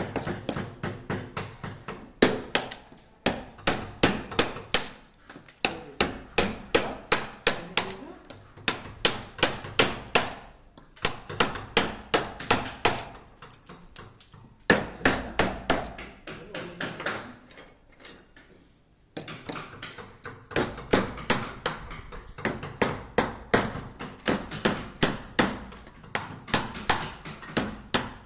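Carving chisel driven into a wooden chair leg by a mallet: quick, even taps about three to four a second, in runs with short pauses between them.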